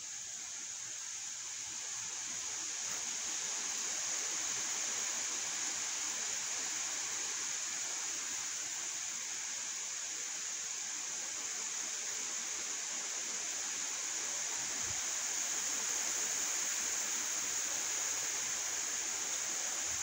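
Steady rushing wind, an even hiss that swells over the first few seconds and then holds.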